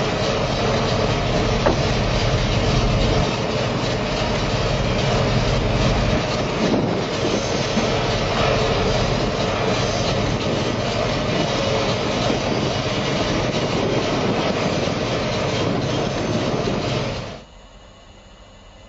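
Ajax DPC-600 gas compressor package heard close to its exhaust outlet and cooler outlet: a loud, steady rumble and rush of machinery. Near the end it drops sharply to a faint distant hum.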